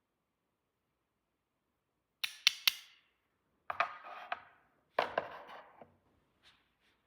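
Small plastic toy pieces being handled, giving sharp clicks and short rattles in three quick clusters after a silent start, then two faint ticks near the end.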